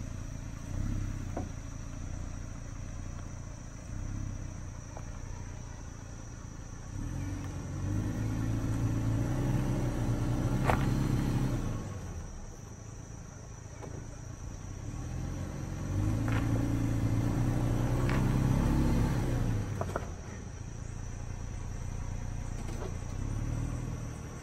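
2018 Toyota Tacoma's V6 engine revving twice under load, each time for a few seconds, as the truck climbs onto an uneven section with its ARB rear air locker engaged. Both rear wheels grip without wheel spin. A few sharp knocks come during the climbs, and crickets chirp steadily throughout.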